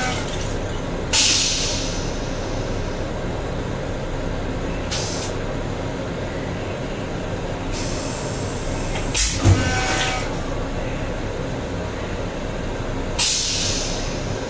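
Steady running noise of an M7 electric commuter railcar, heard inside the car's restroom, broken four times by short bursts of hissing air. The longest burst comes near the middle.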